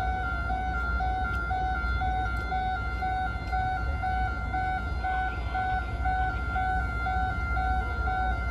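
Electronic two-tone warning alarm, a steady tone flipping between two pitches a couple of times a second, over a low rumble.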